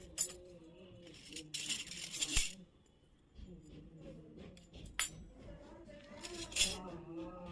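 Small pieces of a miniature toy kitchen set being handled and clinking together, with two sharp clicks and two brief bursts of rustling or scraping. Faint background music runs underneath.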